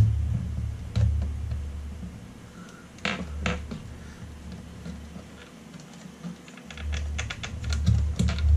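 Small sharp metallic clicks and taps from a toaster oven's sheet-metal body and door spring being worked by hand as the spring is hooked back on: one click, a short cluster, then a quick run of clicks near the end. A low rumble underneath drops out for a few seconds in the middle.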